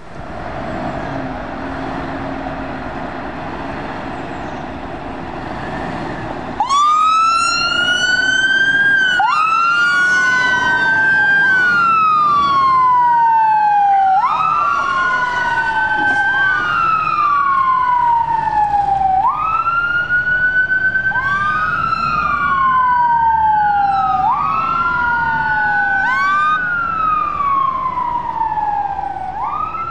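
A steady rumble of road noise, then an emergency vehicle's siren cuts in suddenly and loud about a third of the way in. It sounds a wail that rises quickly and falls slowly, repeating about every two and a half seconds, with overlapping sweeps.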